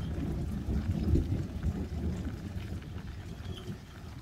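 Thunder rumbling low, loudest about a second in and then fading away, over a faint hiss of rain.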